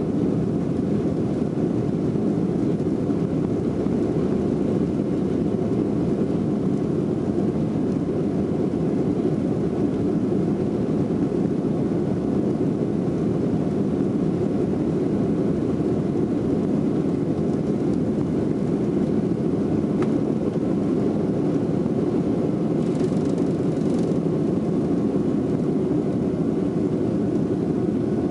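Jet airliner's engines at takeoff thrust during the takeoff roll, heard inside the cabin over the wing: a steady, loud rumbling noise.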